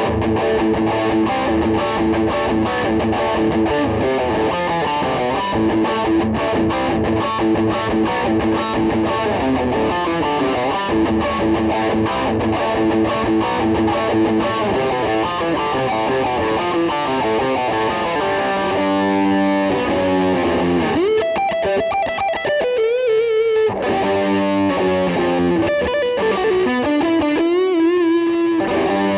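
Replica Gibson Les Paul Custom electric guitar, with a new setup and new control electronics, played through distortion: sustained chords and riffs, then bent single notes with vibrato later on.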